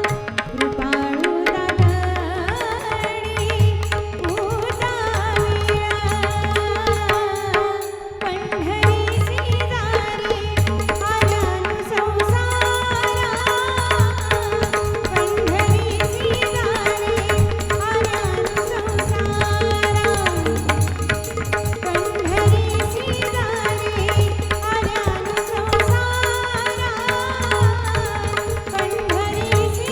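Indian devotional music: tabla and pakhawaj drumming in a steady rhythm under a gliding melodic line over a held drone.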